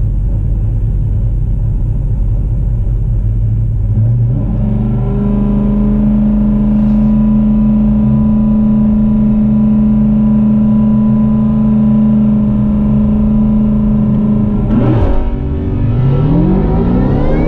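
Engines of a Ford Shelby GT500 and a drag car at the starting line: a low idling rumble, then from about four seconds an engine held at steady raised revs. About fifteen seconds in, at the launch, the engine pitch drops briefly and then climbs quickly as the cars accelerate away.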